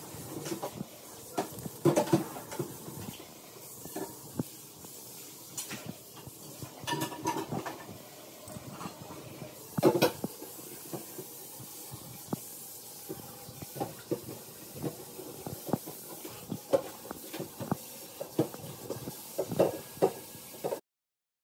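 Two dogs playing on a tile floor: a small puppy's scattered claw clicks, taps and scuffles around a larger dog, over a steady hiss. The loudest knock comes about halfway through, and the sound cuts off just before the end.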